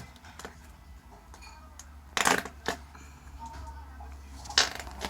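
Flarp noise putty squished in its pot, giving short squelchy fart-like blurts of air: a longer one about two seconds in, a brief one just after, and another near the end, with a few soft clicks of the putty between them.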